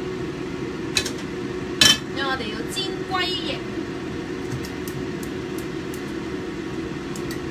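A frying pan is set down on a gas stove's burner grate with a clank about two seconds in. Near the end the gas igniter ticks several times as the burner is lit. A steady hum runs underneath.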